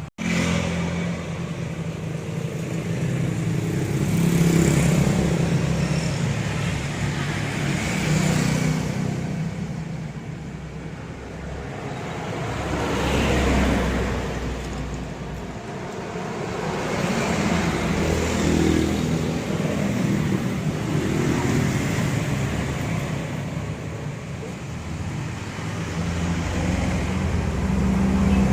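Road traffic: motor vehicles passing one after another, the noise swelling and fading every few seconds over a steady low engine rumble.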